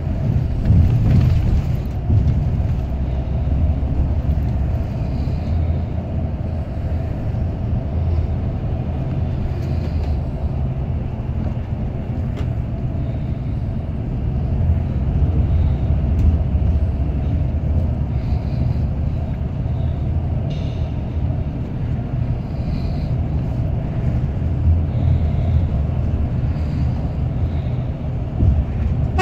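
Steady low rumble of a Scania multi-axle coach cruising at highway speed, engine drone and tyre noise heard from inside the passenger cabin.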